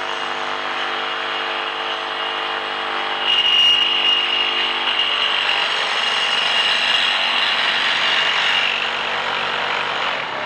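Flex 24V cordless reciprocating saw cutting through a metal pipe with a metal-cutting blade, orbital action off: a steady run of motor and reciprocating blade. A high ringing tone from the blade in the metal joins about three seconds in, slightly louder, and fades out near the end.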